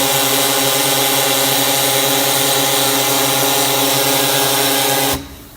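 Ball surface peen sanding machine running a sanding cycle: a loud, steady hum with a harsh hiss over it, which cuts off suddenly about five seconds in as the cycle ends.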